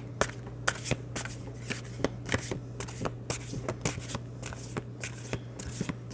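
Tarot cards being shuffled and handled: a run of many short, irregular card clicks and rustles.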